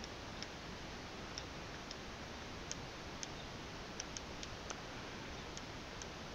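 Small tactile push buttons on a breadboard being pressed and released: about a dozen faint, irregular clicks, some close together, over a steady low hiss.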